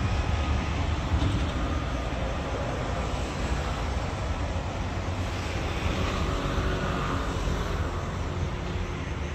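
Steady low rumble of outdoor city background noise, with no train passing.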